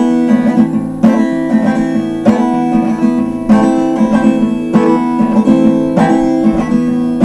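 Acoustic guitar strumming chords, a new chord struck about every second and a quarter, as the instrumental introduction to a song.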